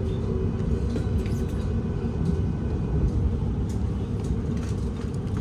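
Cabin sound of a Class 701 Arterio electric multiple unit in motion: a steady low rumble of wheels on rail, with a few faint clicks.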